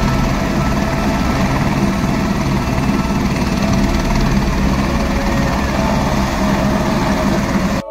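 Airbus AS350-type single-engine helicopter running on the pad, a loud, steady mix of turbine whine and rotor noise heard close by. It cuts off abruptly just before the end.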